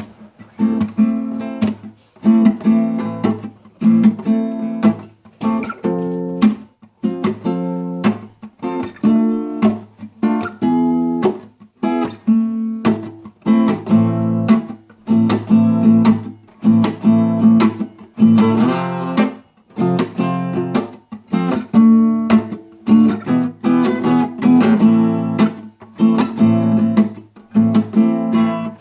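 Acoustic guitar strummed in a steady rhythm, chords struck and briefly choked off between strokes.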